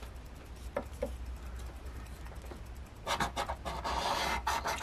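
Scratch-off lottery ticket being scraped with a small round scraper: a couple of light taps at first, then quick rubbing strokes from about three seconds in.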